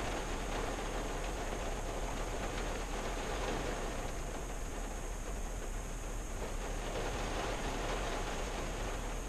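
Rain falling on a 1974 Valiant, heard from inside the closed cabin: a steady, dense, even patter with no let-up.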